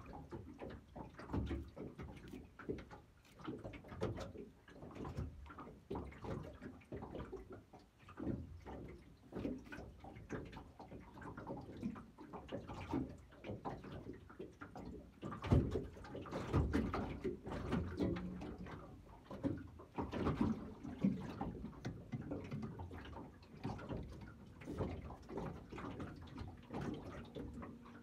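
Small waves slapping against a small aluminium fishing boat's hull, with irregular knocks and bumps from movement in the boat.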